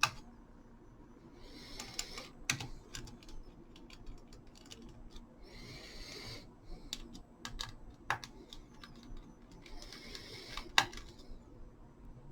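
Faint hands-on work inside an HP laptop: a screwdriver backing out the heatsink's screws, heard as three short scratchy hisses about four seconds apart, with scattered light clicks and taps of the tool and small metal parts.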